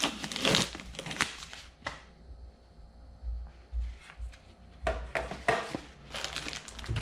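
Packaging rustling and crinkling while parts are handled, with light clicks, in two spells with a quieter stretch between them.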